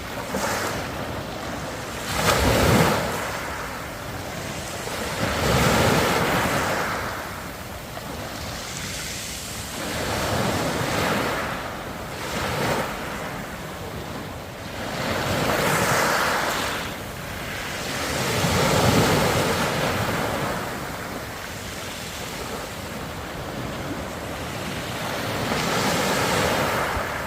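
Ocean waves breaking and washing up on the shore. The surf swells and falls away every few seconds, with the loudest surges about two seconds in, around six seconds and around nineteen seconds.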